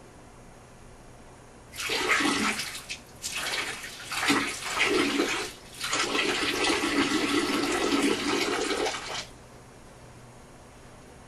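Toilet flushing: a loud rush of water starts about two seconds in, dips briefly twice, and stops abruptly after about seven seconds.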